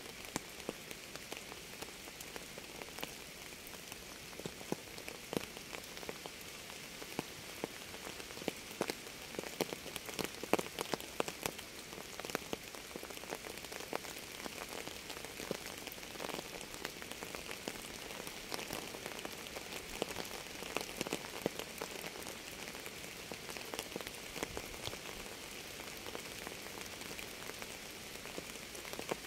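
Steady rain falling on a surface, with many separate nearby drops landing as sharp taps over the hiss, busiest about a third of the way in.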